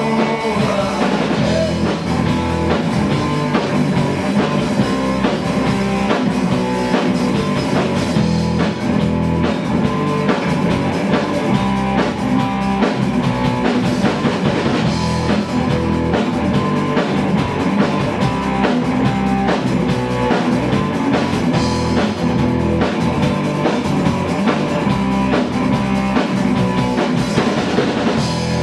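A rock band playing live, with a drum kit and guitars in a passage without singing.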